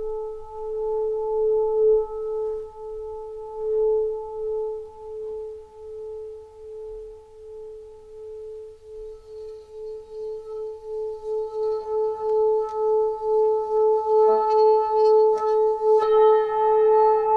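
A sustained ringing drone on one steady pitch with higher overtones, pulsing in loudness two or three times a second and growing louder through the second half, with a few light clicks near the end.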